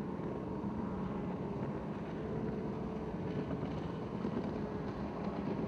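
Racing powerboats' outboard-style engines running at speed in the distance, a steady drone.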